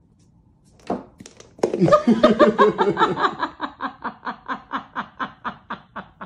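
A person laughing: a long run of quick, even 'ha' pulses, about five a second, that starts about a second and a half in and fades toward the end.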